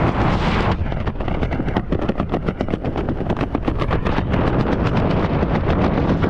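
Skydiving freefall wind rushing and buffeting hard over the camera microphone, with a rapid fluttering from about a second in as the pilot chute is thrown and the parachute deploys.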